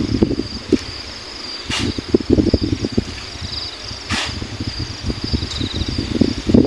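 Hand-shoveling of river sand: the shovel crunches and scrapes into the pile in repeated bouts. Shovelfuls are thrown into the dump truck bed twice, each landing with a short, sharp hiss. Insects chirp steadily behind.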